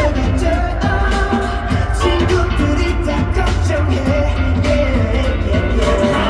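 Pop song played live at a concert soundcheck over the arena sound system, with male singing over a band and a heavy bass.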